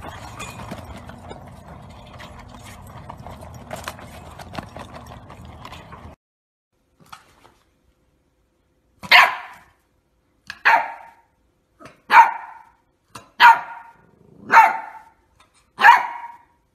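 Labrador puppy barking: six short, evenly spaced barks about a second and a half apart, beginning about nine seconds in. They follow a few seconds of low steady background noise that cuts off suddenly.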